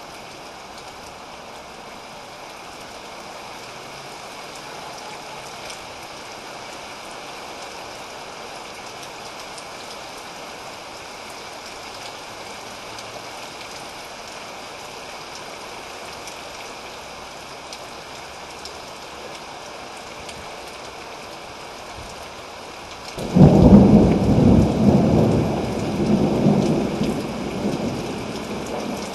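Heavy rain falling steadily, then near the end a sudden loud clap of thunder that rumbles on and fades over several seconds.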